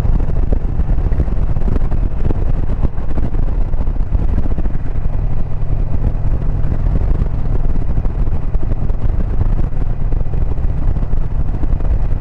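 A 2022 Indian Pursuit's V-twin engine running steadily while the motorcycle cruises down the road, heard from the rider's seat.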